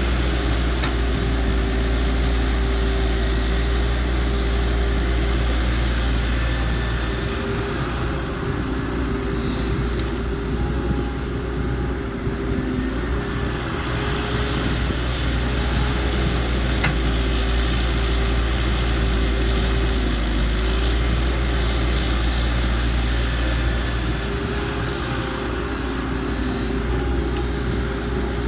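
Heavy diesel earthmoving machinery running steadily: a deep engine drone with a constant whine above it.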